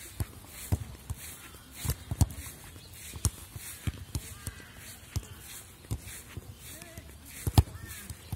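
About a dozen irregular dull thumps on a grass football pitch, the loudest near the end, with faint shouting voices of players in the distance.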